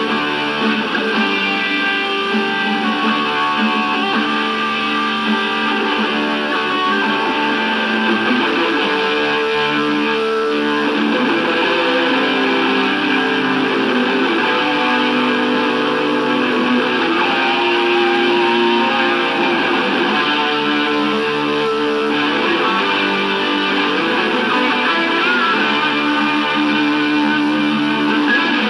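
Instrumental music led by guitar, with chords and sustained notes and no singing.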